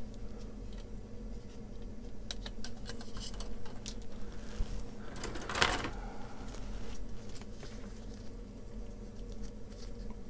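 Small clicks and handling noises of plastic model-kit parts being worked off the sprue and cleaned up, with one louder short scrape about five and a half seconds in. Under them runs a steady low hum from a domestic boiler.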